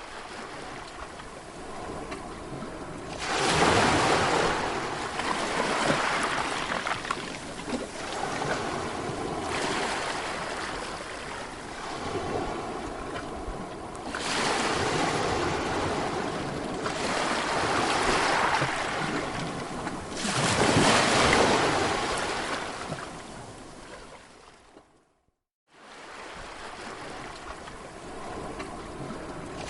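Sea waves breaking and washing up the shore, surging and receding every few seconds, with two louder breakers. Near the end the sound cuts out completely for a moment, a splice in the recording, then the surf resumes.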